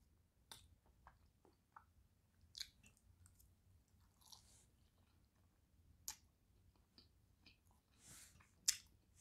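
Quiet chewing of a forkful of turkey leg meat: soft, scattered clicks and smacks of the mouth spread over several seconds.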